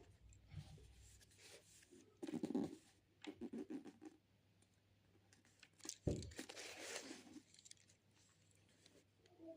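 Quiet handling noises: rustling and crinkling with scattered clicks, and a sharp knock about six seconds in followed by a longer rustle.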